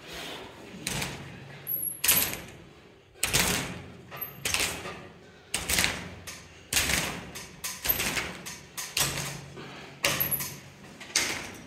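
Steel arm-wrestling cup handle and resistance band being worked in repeated training pulls: a sudden noisy clack or snap about once a second, each fading over about half a second, with a few short high squeaks.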